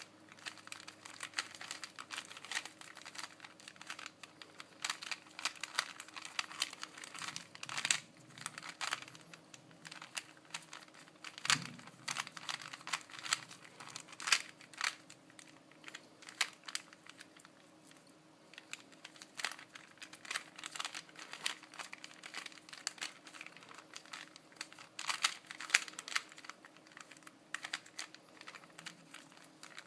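Rubik's Cube being turned by hand in quick runs of moves, its plastic layers clicking and clattering.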